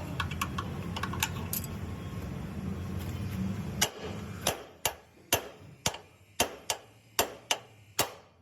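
A steady low hum with a few light ticks stops about four seconds in, then a hammer strikes metal about twice a second in sharp, ringing blows, as in working a ball joint loose during a ball joint replacement.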